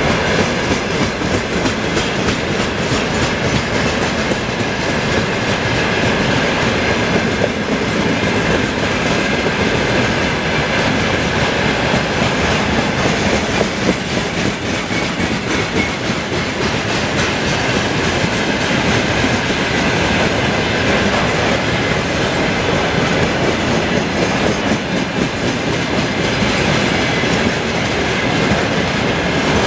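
Railway tank wagons of a freight train rolling past close by at speed: a steady loud rumble with wheels clattering over the rail joints and a faint high steady tone.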